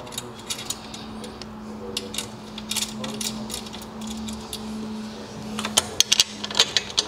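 Light metallic clicks and clinks of bolts, nuts and washers being handled and fitted as a proportioner is mounted to the sprayer's stainless steel plate, with a quick run of ticks near the end. A faint steady hum sits underneath and stops shortly before the end.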